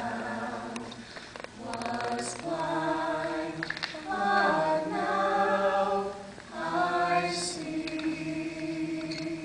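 A small group of mixed voices singing a cappella in harmony: slow, long-held notes, with brief breaks about a second and a half in and again around six and a half seconds.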